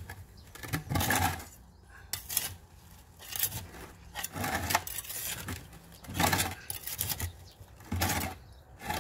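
A small metal trowel scraping and prying along the inside rim of a plant pot through gritty potting mix, in about six separate strokes, loosening the root ball of a large kalanchoe for repotting.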